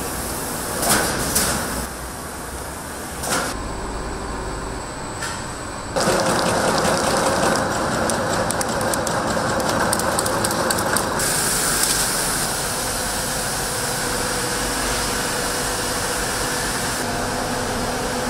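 Food-factory production machinery running: automatic packaging machines and conveyors make a steady mechanical din. The din shifts and grows louder as the shots change, and a few sharp clacks come in the first few seconds.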